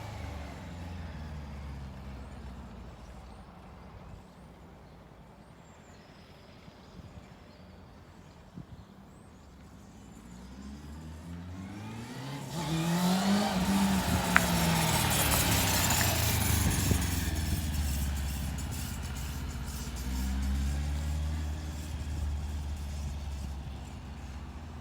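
Honda CBR600F2's inline-four motorcycle engine running under way. The note fades and drops for several seconds, then climbs in pitch and grows loud about halfway through before falling away again, with a smaller swell near the end.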